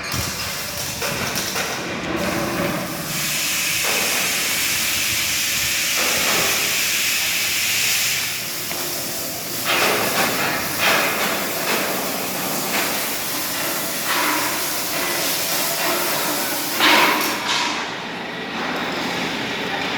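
Steady loud hissing, with a run of short knocks and clanks from about halfway through.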